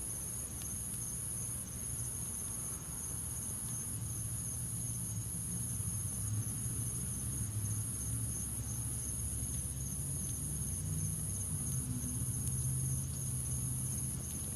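Steady high-pitched insect chorus with a regular pulse about every half second, over a continuous low rumble.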